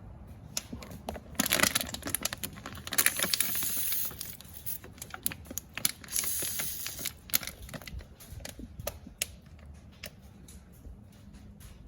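Spray bottle squirting soapy water onto A/C fittings to check for refrigerant leaks: three bursts of hissing spray among many small handling clicks and taps.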